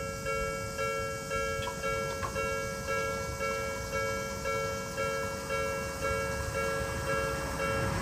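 Japanese railway level-crossing warning bell, the electronic "kan-kan" alarm, ringing over and over at an even pace: the crossing has been triggered by an approaching train.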